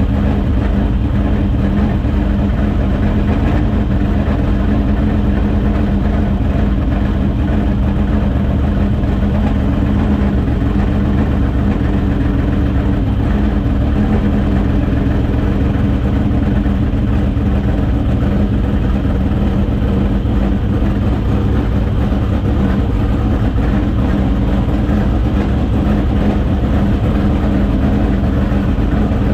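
Dirt late model race car's V8 engine running steadily at an even pitch, loud and close.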